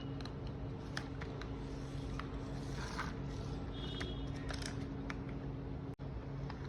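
Small electric motor of a toy RC bulldozer humming steadily, with scattered plastic clicks and a few short scrapes. The sound breaks off abruptly for an instant near the end.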